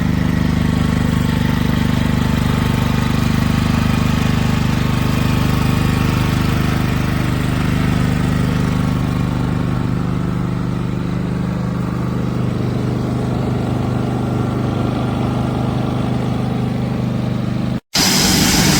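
Westinghouse 4000-watt dual-fuel inverter generator running steadily at an even engine speed, cut off suddenly near the end by an edit.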